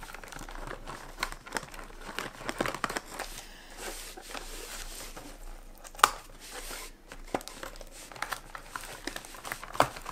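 Small scissors snipping and scraping at clear packing tape on a cardboard box, with the cardboard and tape crinkling as they are handled. Two sharper clicks stand out, about six seconds in and near the end.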